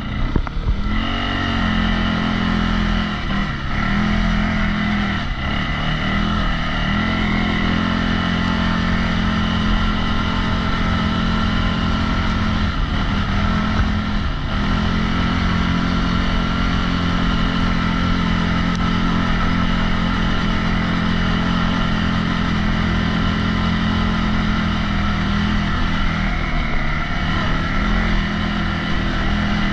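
CFMOTO CFORCE 625 ATV's single-cylinder engine running under steady throttle while riding a dirt trail. The engine note holds steady, with brief dips in the first few seconds and again about halfway through.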